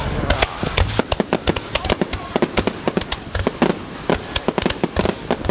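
Aerial fireworks in a dense finale barrage: a rapid, continuous crackle of many sharp pops and bangs each second over a low rumble.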